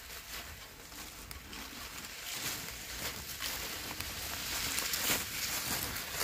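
Snowshoe footsteps crunching on a packed snow trail, with a pulk sled sliding over the snow. The crunching grows louder about two seconds in.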